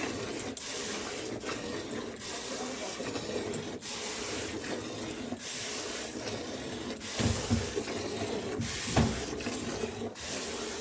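Cow being milked by hand, with repeated squirts of milk hissing into a pail about once a second. Two dull low thumps come in the second half.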